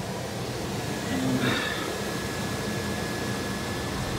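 Vintage Air heater/AC blower fan running steadily, air rushing out of the dash vents, with a faint steady whine. A short, louder sound about a second and a half in.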